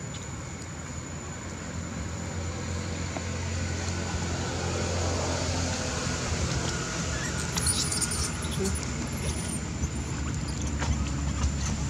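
A motor vehicle engine running, with a steady low hum that grows louder over the first few seconds and stays up. Faint high chirps come about two-thirds of the way through.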